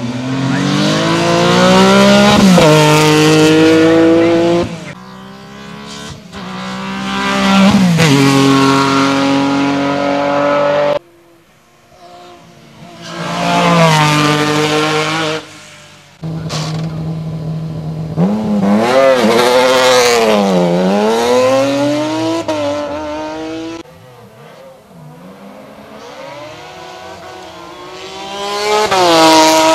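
Racing sports-prototype engines at full throttle in a series of passes, each climbing steeply in pitch and dropping sharply at every upshift as the cars accelerate through the gears. About two thirds of the way in, the pitch falls and rises again, and near the end an Osella PA 16 climbs loudly through the revs.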